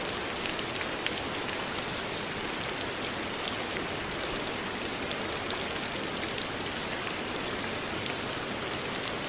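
Steady rain falling, an even hiss sprinkled with many small individual drop ticks.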